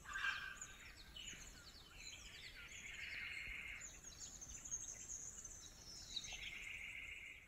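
Bush ambience: many small birds chirping and calling in short quick notes, with a buzzing chorus that comes in for stretches of about two seconds and drops out again.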